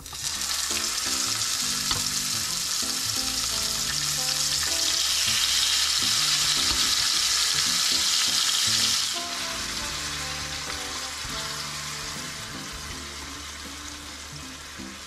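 Marinated chicken pieces sizzling as they are dropped into hot cooking oil in a frying pan. The sizzle starts sharply, grows loudest in the middle, then drops off suddenly a few seconds before the end and keeps fading.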